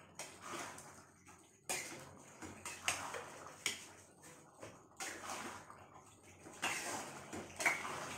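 Metal spatula stirring thick chicken gravy in a steel pot, scraping and knocking against the pot about once a second, over a watery bubbling.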